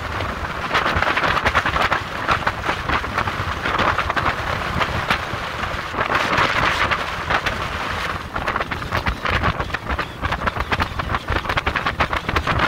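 Wind buffeting the microphone on a skiff under way, with the hull slapping and splashing through the chop in many quick, uneven knocks.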